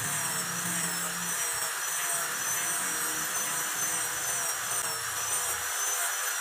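Small angle grinder grinding steel, its high whine wavering up and down in pitch as the disc is pressed and eased against the work.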